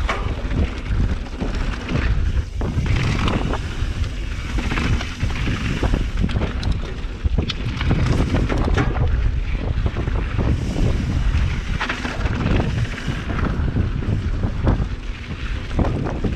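Wind buffeting the camera microphone as a Trek Remedy 9.8 full-suspension mountain bike rides fast down a dirt singletrack, with tyres crunching on loose gravel and frequent short knocks and rattles from the bike over the rough ground.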